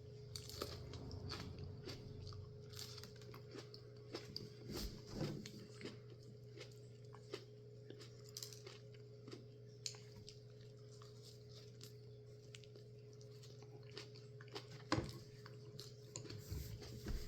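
A person chewing a mouthful of fresh Gator Jigsaw chili pepper pod: irregular small crunches and mouth clicks, a little louder around five seconds in and again near fifteen seconds, over a steady low hum.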